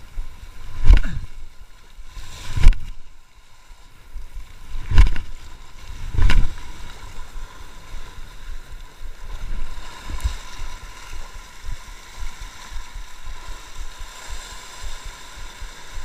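Sea water washing and splashing against shore rocks, with four loud low thumps in the first seven seconds, then a steadier wash.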